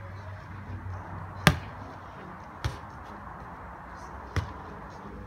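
Volleyball struck by hand three times in a beach volleyball rally: a sharp serve hit about a second and a half in, the loudest, then two lighter contacts as the ball is received and played on the far side.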